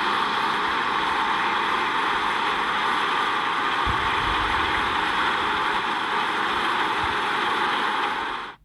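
Combine harvester running steadily, a dense even machine noise that cuts off abruptly near the end.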